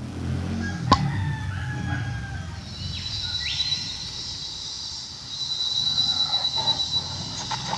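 Rooster crowing in the background. A steady high-pitched tone comes in about two and a half seconds in.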